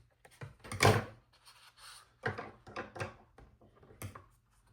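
Handling noises of paper and craft supplies on a desk: a few short rustles and light knocks, the loudest about a second in.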